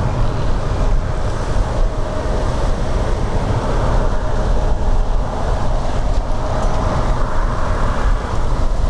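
Jet airliner engines running at takeoff power, a steady rumble with a faint even whine, under heavy wind buffeting on the microphone.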